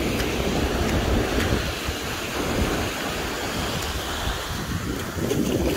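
Shallow surf washing over sand at the water's edge, with wind rumbling on the microphone.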